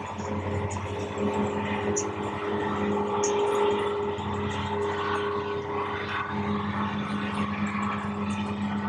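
Engines running with a steady, even drone whose pitch shifts slightly about six seconds in.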